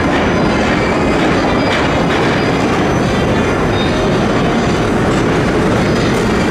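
New York City subway train running along the track: a steady loud rumble of wheels on rails, with a few clacks as the wheels pass over rail joints.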